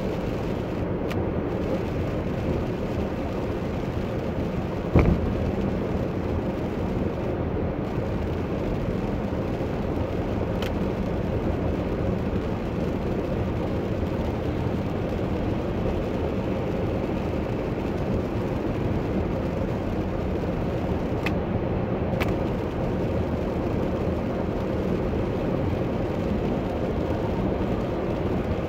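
Steady road noise inside a car cabin driving on a wet highway: tyre noise on rain-soaked pavement over the running engine. A single sharp knock about five seconds in, and a few faint ticks later on.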